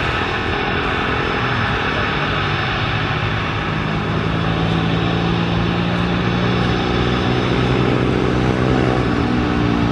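Jet engines of an Airbus A330 airliner running loud and steady, with a low drone that grows a little louder in the second half.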